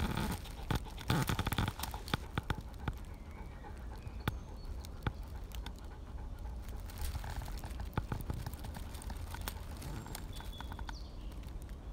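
Footsteps and shuffling in dry fallen leaves: irregular crackles and clicks, thickest in the first couple of seconds and then sparser.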